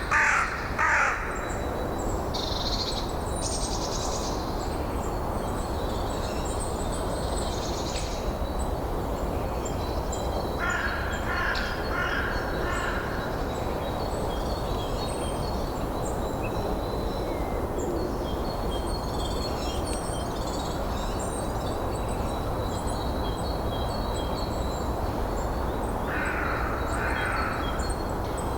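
Steady wind noise with small birds chirping faintly. A larger bird gives short runs of loud calls right at the start, again about eleven seconds in, and near the end.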